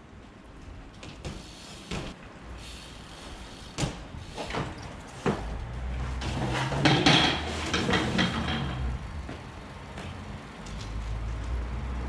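BMX bike being ridden over a street spot: a run of separate knocks and clatters from the bike, loudest and densest about seven seconds in, with a low rumble underneath through the second half.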